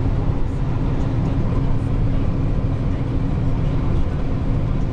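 Dump truck's diesel engine running steadily: a constant low drone.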